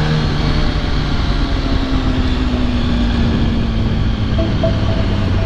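2006 Yamaha R1 inline-four engine easing off after a rev-up, its drone falling slowly in pitch, with wind rushing over the helmet-mounted microphone.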